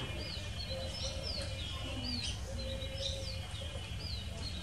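Small birds chirping: short, high notes that slide downward, repeating about two or three times a second over a steady low background hum.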